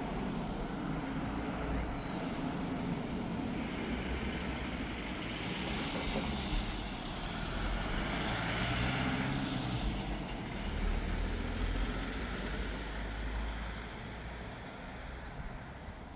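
Airliner passing on its approach: a steady rush of engine noise that swells to its loudest about halfway through, then fades away.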